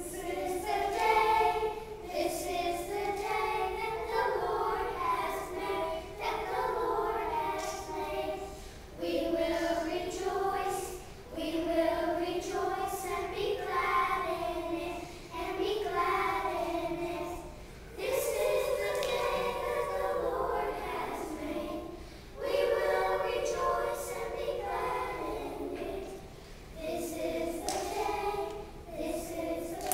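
A group of young children singing a song together, in phrases of a few seconds each with short breaks between them.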